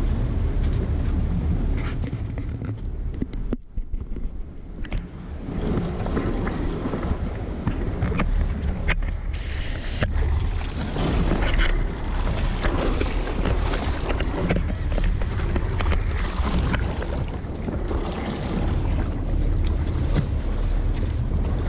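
Wind rumbling on the microphone over choppy water splashing against the boat, with a hooked tarpon thrashing at the surface alongside.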